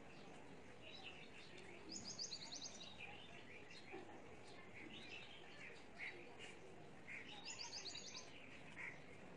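Small birds singing and chirping faintly in repeated short phrases. A quick high trill of rapid notes comes twice, about two seconds in and again a little past seven seconds.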